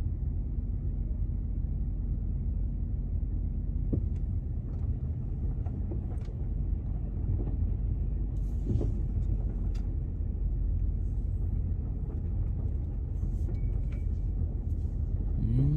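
Car engine running with a steady low rumble, heard from inside the cabin, with a few faint ticks.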